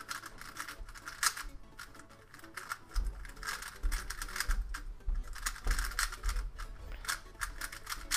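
MoYu Weilong GTS 3x3 speedcube being turned fast in the hands out of the box: a dense run of quick plastic clicks as the layers snap round, with low handling bumps from about three seconds in.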